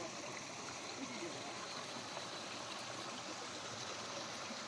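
Steady rush of a stream's water flowing over rocks.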